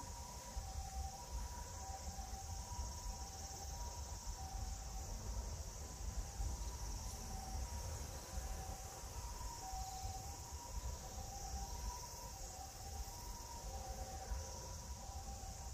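Steady high buzz of insects in the grass, with a low wind rumble on the microphone and faint clean tones alternating between a higher and a lower note at an uneven pace.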